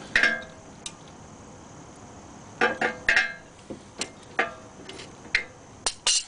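Large channel-lock pliers and the steel of a two-piston front brake caliper clinking against each other as the pistons are squeezed back in: a string of sharp metallic clinks, several with a brief ring.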